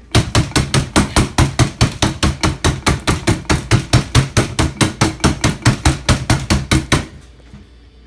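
Rapid, even pounding, about five blows a second for some seven seconds, crushing Oreo cookies into crumbs; it stops abruptly near the end.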